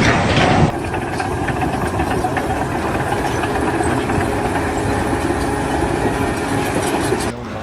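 An engine running steadily, with a louder burst of noise in the first moment and an abrupt cut near the end.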